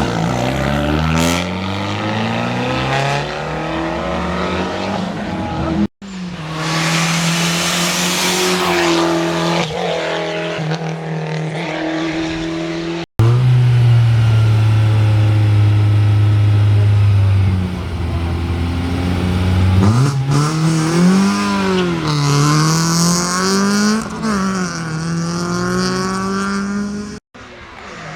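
Hill-climb racing car engines at full throttle, revs climbing and dropping sharply through gear changes as the cars pass, in several short clips cut together. In the middle one engine holds a steady, loud note for a few seconds before the revs start swinging up and down again.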